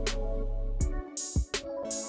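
Background music with a drum beat and bass; the bass drops out briefly about halfway through.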